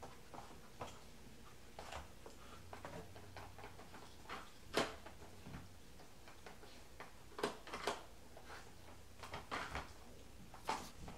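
Plastic sliding covers and the spinning centre of an Aikiou interactive puzzle feeder being pawed and nosed open by a puppy: irregular clicks and knocks, the loudest about five seconds in and a quick pair near eight seconds.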